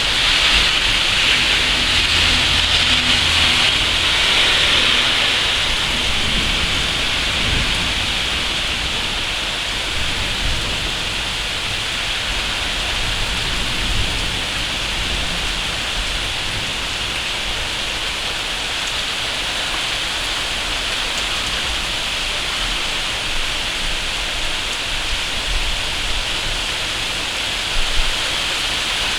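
Heavy rain pouring down in a steady hiss, a little heavier for the first few seconds and then easing slightly, with a brief sharp tap near the end.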